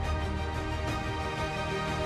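Television programme title theme music: sustained low notes under held higher tones, with a light percussive hit about a second in.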